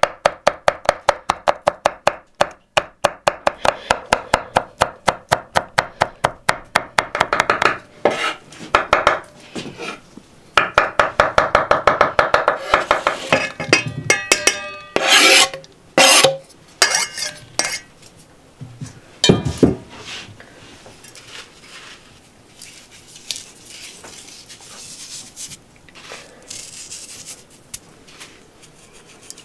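A chef's knife chopping garlic on a wooden cutting board, with quick even strikes about five a second. The strikes turn irregular after about seven seconds, and the blade scrapes the minced garlic across the board. The last third holds only quieter rubbing and handling sounds.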